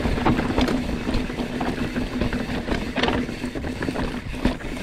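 Mountain bike rattling and knocking over rocky ground, with scattered sharp knocks and a steady buzzing hum throughout.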